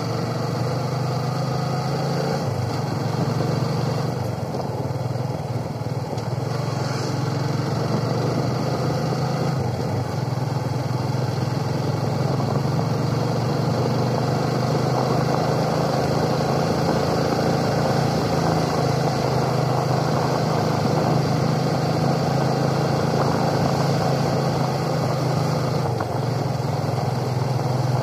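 Motorcycle engine running steadily as the bike rides along at an even pace, with road and wind noise mixed in.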